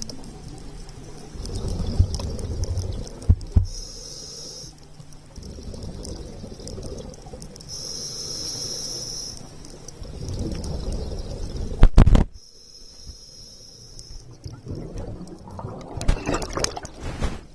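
Scuba diver breathing underwater through a regulator: a hissing inhale every few seconds alternates with the low rumble of exhaled bubbles. A few sharp knocks, the loudest about twelve seconds in.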